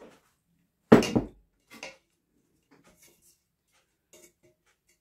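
A single heavy thump about a second in as a large glass jar packed with marinated cabbage is set down on the table, followed by a lighter knock and a few faint clinks as an aluminium pot is handled.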